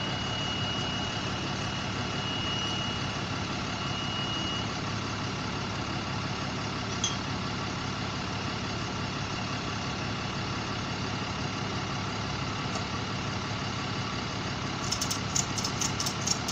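A vehicle engine idling steadily, with a thin high tone over the first few seconds and a quick run of clicks near the end.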